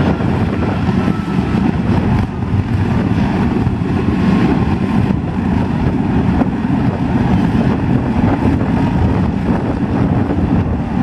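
The jet engine of a jet-powered vehicle running steadily, its exhaust flame blasting into a car. It is a loud, steady, deep rushing noise with no letup.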